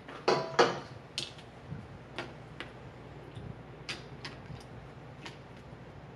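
Clinks and taps of kitchen utensils: a ladle knocking against a stainless steel stockpot and glass canning jars while broth is ladled into the jars. Two loud, ringing clinks come just after the start, then a scattering of lighter sharp taps.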